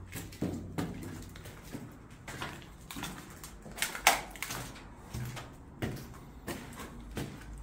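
Footsteps on debris-strewn concrete stairs and floor: a walking rhythm of scuffs and gritty crunches, about two a second, with one louder crunch about four seconds in.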